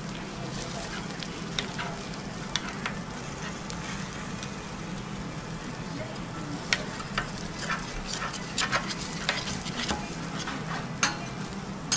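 Okonomiyaki sizzling on a hot steel teppanyaki griddle while metal spatulas cut through it, with sharp scrapes and taps of steel on the plate. The taps come more often in the second half.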